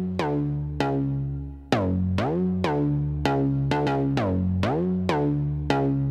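Electronic theme music for a podcast intro: a drum-machine beat with synthesizer notes struck in a steady rhythm, each note sliding up in pitch as it starts.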